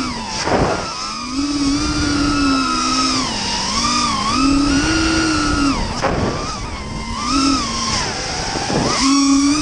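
FPV quadcopter's electric motors whining, the pitch rising and falling as the throttle changes, heard from the camera on board with wind rushing past. The whine drops out briefly three times: about half a second in, around six seconds and near the end.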